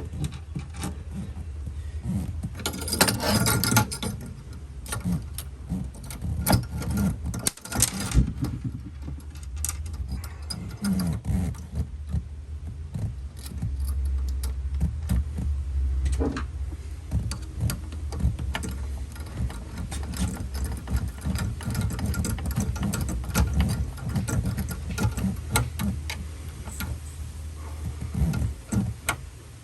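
Cordless drill running in short stretches, drilling pilot holes and driving the screws that mount a spring hatch support, with clicks and rattles of the parts and tools being handled. A few brief louder bursts come about three and eight seconds in.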